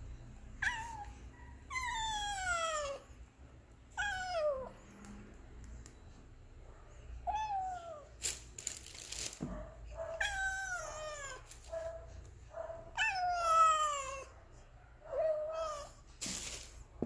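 Hungry kittens and cats meowing for food: a series of about eight meows, most sliding down in pitch, some drawn out over a second. A couple of brief rustles come between them.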